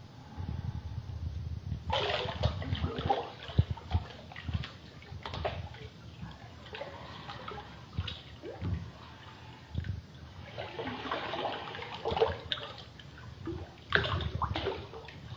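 Bathtub water sloshing and splashing as a person turns over in the tub, in several irregular bursts with small splashes and drips between them.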